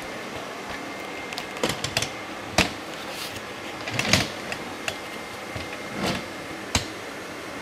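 Knocks and clunks of a camera tripod being carried and set down, a handful of them scattered irregularly, the loudest about four seconds in. A steady hiss runs underneath.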